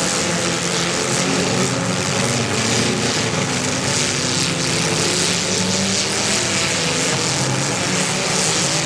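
Several compact demolition derby cars' engines revving together as the cars shove against each other in a tight pack, their overlapping pitches wavering up and down.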